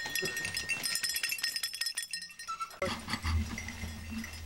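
A small bell jingling and clinking again and again in quick irregular strokes. About three seconds in the sound changes suddenly and a low steady hum comes in under fainter jingling.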